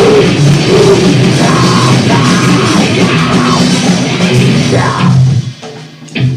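Very loud, distorted noise-rock song with drum kit and guitar. It cuts off abruptly about five seconds in, leaving quieter scattered sounds and one sharp hit near the end.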